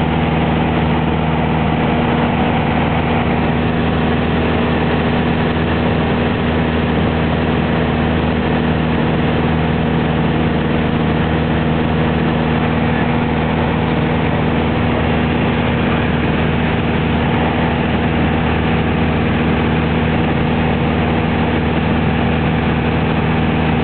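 Light aircraft's piston engine and propeller running steadily in flight: a constant, unchanging engine note with an even noise over it.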